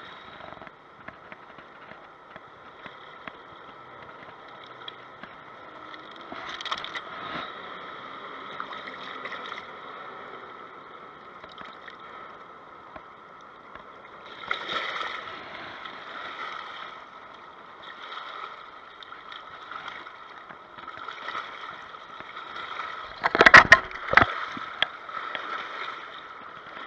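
Shallow river water running and lapping over rocks at the shoreline. Hands and a caught fish splash in the water, briefly about 15 seconds in and loudest a little after 23 seconds.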